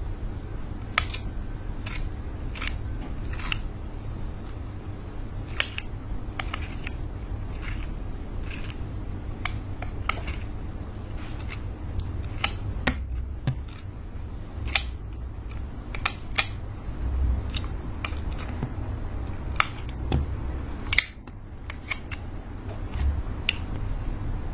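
A flat metal blade slicing and shaving thin curls off a glitter lipstick, giving irregular crisp clicks and scrapes over a low steady hum.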